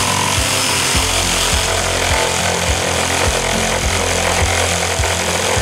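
PRIMERO corded jigsaw running at its single fixed speed, its reciprocating blade cutting through an SPF softwood board with a steady sawing noise.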